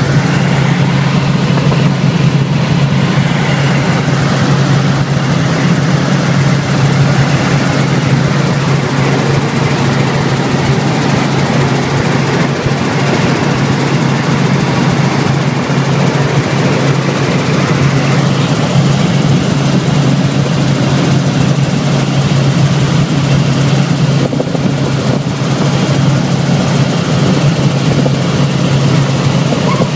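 Robinson R44 Raven II helicopter in flight, heard from inside the cabin: its Lycoming six-cylinder engine and rotors make a loud, steady drone with a strong low hum.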